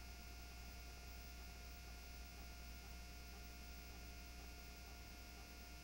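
Near silence: a faint, steady electrical hum with hiss, the recording's background noise on a black screen.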